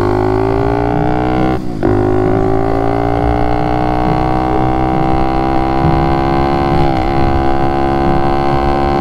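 A 110cc single-cylinder pit bike engine running hard under way, its pitch climbing slowly. The engine note breaks briefly about two seconds in, picks up again and keeps rising, then wavers for a moment about seven seconds in. The bike has a newly fitted racing carburettor that has just been richened to chase a recurring running fault.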